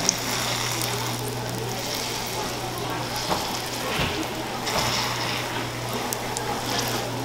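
Croissant dough sizzling on the hot plates of a waffle iron, a steady hiss over a low hum, with a few sharp clicks as metal tongs press it flat against the grid.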